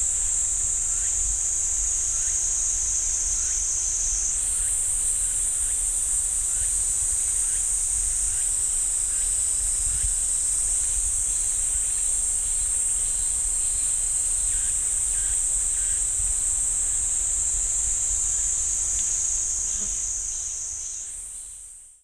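A chorus of cicadas making a steady, high-pitched buzz in a summer pine forest. The buzz rises a step in pitch about four seconds in and fades out at the very end.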